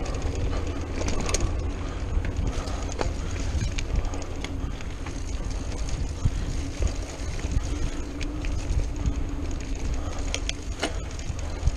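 Mountain bike rolling along a dirt singletrack, heard from a chest-mounted action camera: steady wind buffeting on the microphone and tyre rumble, with scattered clicks and rattles from the bike over bumps.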